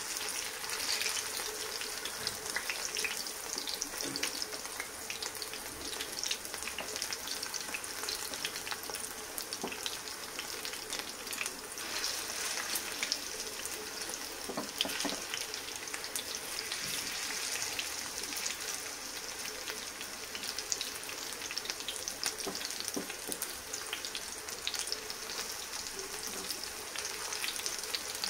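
Semolina and vegetable patties shallow-frying in hot oil in a non-stick pan: steady sizzling with fine crackling, as they fry to light brown. A silicone spatula scrapes and taps in the pan now and then as the patties are turned.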